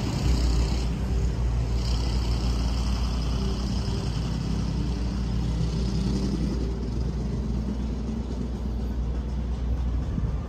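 Street traffic: a motor vehicle's engine running close by, a steady low rumble.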